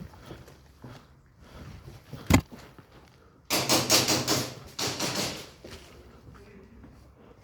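One sharp knock about two seconds in, then a couple of seconds of shuffling and rustling from a player moving about.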